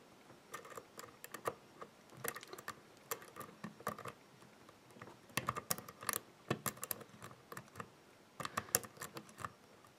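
Lock pick working the pins of a CES euro cylinder: irregular, light metallic clicks and ticks in short clusters as a deep hook lifts the pins under tension from a wrench turning the plug clockwise.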